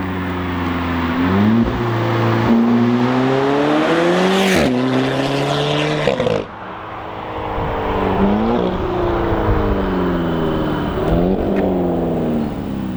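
Sports car engine accelerating hard through the gears. The pitch climbs and then drops back sharply at each upshift, several times over. About halfway through the sound changes abruptly, and further climbs and gear changes follow.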